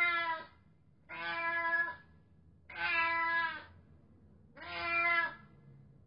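Domestic cat meowing: four meows in a row, each nearly a second long, about one and a half seconds apart. The first is already under way at the start.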